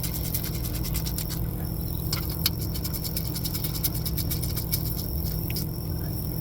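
Ratchet clicking in quick runs as a fastener is snugged down, over a steady low hum.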